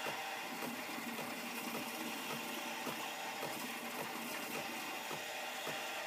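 Nespresso Creatista Pro's automatic steam wand frothing milk in a stainless steel jug: a steady hiss.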